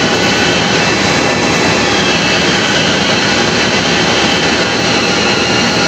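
Heavy-duty vertical turret lathe running, its large table turning a workpiece under the cutting tool: a loud, steady mechanical noise with faint high whining tones held through it.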